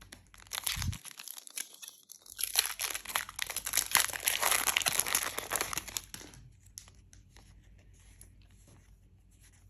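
Foil wrapper of a Disney Lorcana booster pack crinkling and tearing open: a few seconds of dense crackling, loudest in the middle, then only faint light ticks.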